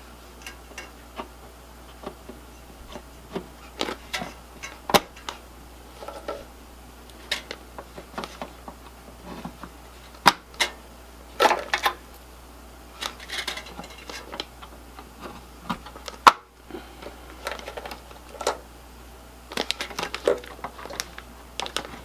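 Scattered clicks and rustling as server memory modules (16 GB DIMMs) are handled out of an anti-static bag and pushed into the memory slots, with a few sharper clicks as modules snap into place.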